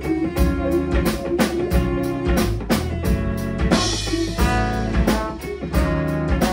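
Live jazz-funk band playing: violin and trombone together over electric guitars, electric bass and a drum kit keeping a steady beat.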